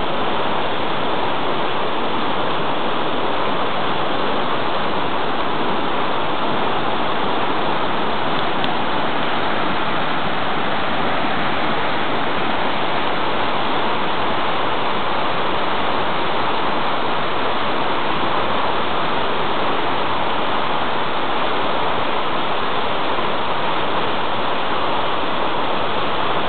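Whitewater river rapid rushing with a steady, unbroken noise of churning water.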